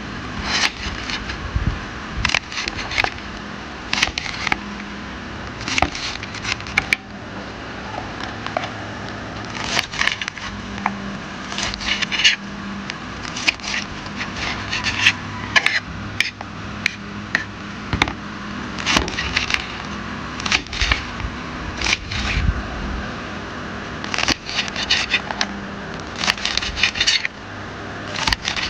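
Knife cutting crisp deep-fried tofu into cubes: repeated short crunchy crackles as the blade goes through the fried crust, coming in irregular clusters.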